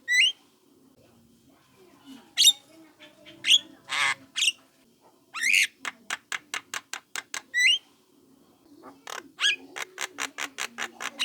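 Young Javan myna calling: runs of quick, sharp clicking notes mixed with harsh squawks and short up-slurred whistles.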